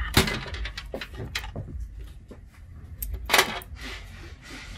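Clicks and light knocks of hard plastic and metal from handling a liquid-cooler pump block and its mounting bracket. The loudest knocks come just after the start and about three and a half seconds in.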